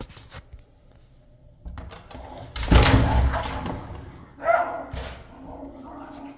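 A brass letterbox flap and wooden front door rattling and thudding as a dog on the other side snatches a cardboard parcel envelope in through the slot, loudest about three seconds in, with a further thud about five seconds in.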